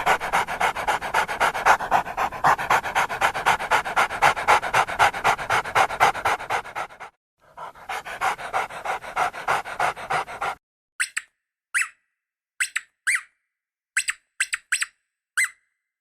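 Dog panting rapidly in quick, even breaths, breaking off for a moment about seven seconds in and starting again. The panting stops about ten and a half seconds in, and a string of short, sharp high squeaks follows.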